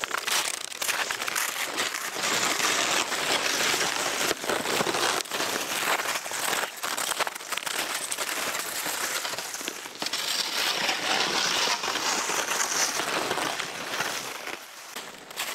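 Snowshoes crunching on packed snow and towed sleds scraping along the snow, passing close by, then fading away near the end.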